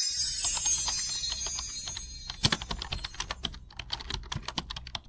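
A bright chime fading out over the first two seconds, followed by a run of irregular sharp clicks, several a second, like keyboard typing, over a low steady hum.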